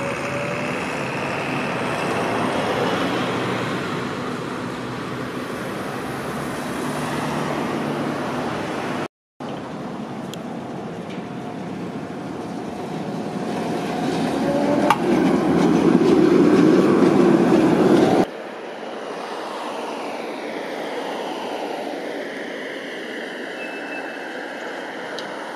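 Metre-gauge trams running: an Electron T3L44 low-floor tram pulls into a stop. After a brief dropout a Tatra KT4SU articulated tram runs past, rising to its loudest a little past the middle, and after a cut the sound becomes a quieter, more distant mix of tram and road traffic.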